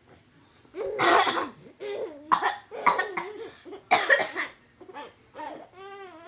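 A run of harsh coughs, the loudest about one to four seconds in, followed near the end by a young child's high-pitched voice.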